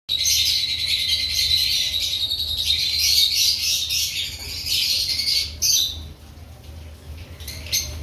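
Lovebird chattering in dense, high-pitched chirps for about six seconds, then quieter, with one short burst of chirps near the end.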